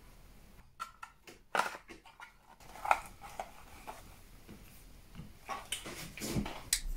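Scattered clicks and light taps of small tools and parts being handled and set down on a workbench, in several short clusters.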